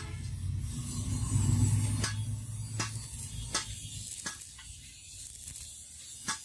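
Steady background hiss with a low hum, and a few sharp knocks evenly spaced about three-quarters of a second apart through the middle.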